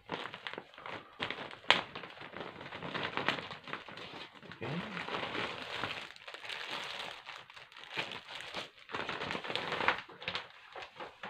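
Clear plastic packaging bag crinkling and rustling as it is handled and pulled open, with sharper crackles about two seconds in and again near the end.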